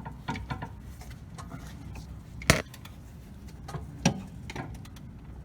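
Metallic clicks and clinks of tools on the N57 diesel engine as it is turned over by hand during a timing chain check, with two louder sharp clanks about two and a half and four seconds in.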